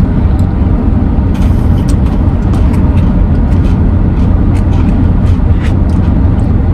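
Steady low rumble of a running vehicle, with scattered faint clicks and taps over it.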